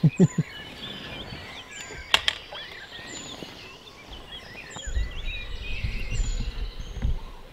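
Dawn birdsong from several birds, many short chirping phrases overlapping, with one bird repeating a short high call every second or so. A sharp click about two seconds in, and a low rumble from about five seconds in.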